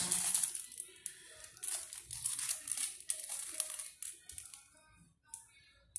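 Irregular rustling and crinkling in short bursts, dying away about four and a half seconds in.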